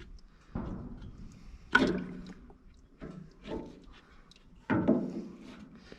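Five sharp clunks and knocks, each ringing out briefly, as the oil filter is worked out of a Ford 8N tractor's remote filter housing and catches against the fuel bowl.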